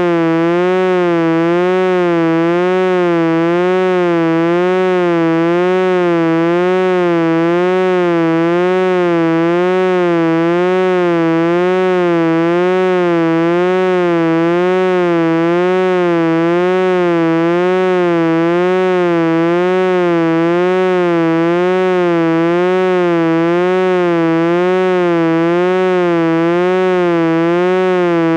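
Steady electronic tone, rich in overtones, with a slow even wobble in pitch about once a second.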